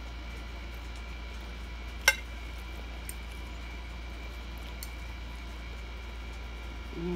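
A utensil clinking once against a dish about two seconds in, with a brief ring, then a few faint clicks over a steady background hum.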